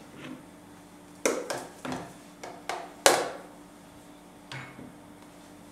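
A series of sharp clacks and knocks of hard kitchen items being handled and set down, about six in quick succession with the loudest about three seconds in, then one more a little later, over a faint steady hum.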